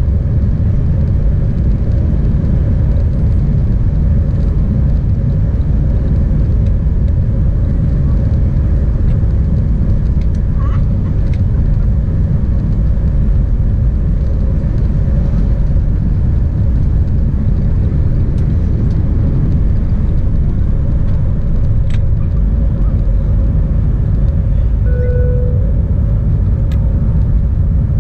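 Airbus A320's jet engines at takeoff thrust, heard inside the cabin over the wing: a loud, steady rumble with a steady hum over it, through the takeoff roll and lift-off.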